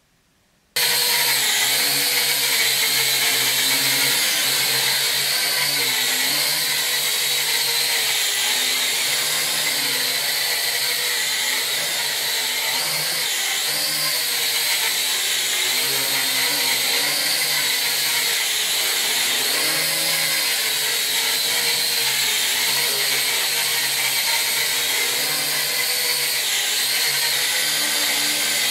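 Toy quadcopter's small electric motors and propellers whining in flight. The whine starts suddenly about a second in, and its pitch wavers up and down as the motor speed changes.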